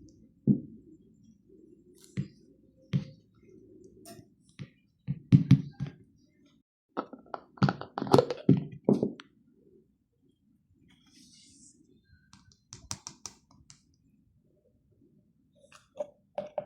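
Irregular knocks, clicks and rustles of objects being handled and set down, with a busier run of clicks about seven to nine seconds in.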